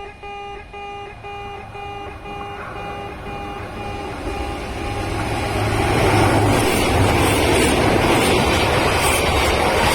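Electronic level-crossing bell of the old 'pee-pee' type, at a Kintetsu station's in-station crossing, beeping about twice a second. From about five seconds in a train's rumble and wheel noise builds and becomes the loudest sound, the bell still heard under it.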